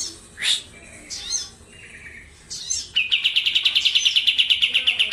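A kapas tembak songbird gives a few short, separate chirps and sweeping calls. About three seconds in it breaks into a loud, rapid, evenly repeated rolling trill, the prized 'ngerol'.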